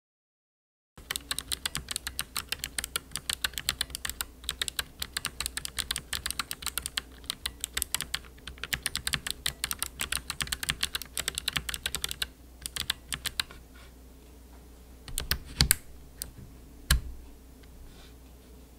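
Typing on a mechanical keyboard with Kailh BOX White switches, clicky switches with a click bar, so each keystroke gives a sharp click. Fast, steady typing starts about a second in and runs for about eleven seconds, then thins to scattered keystrokes, with a few louder separate clicks near the end.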